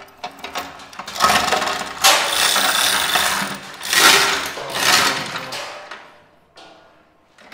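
Hand chain of a manual chain hoist being hauled hand over hand, the steel chain rattling through the hoist in several runs lasting a second or more, from about a second in until about six seconds in.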